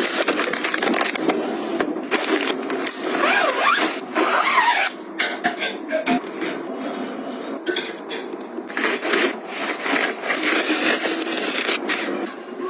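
Household items being handled during cleaning and organizing: irregular rubbing and scraping with many light knocks and clicks, and a brief squeak of something rubbed about three to five seconds in.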